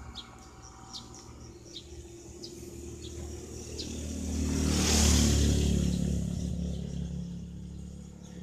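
A motor vehicle drives past: engine and tyre noise swell to a peak about halfway through, then fade away. Short high chirps repeat about twice a second in the first few seconds.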